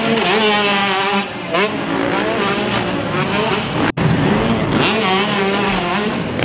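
Dirt bike engine revving up and down through the gears as it rides a motocross track, rising and falling in pitch again and again. The sound breaks off for an instant about four seconds in, then the engine picks up again.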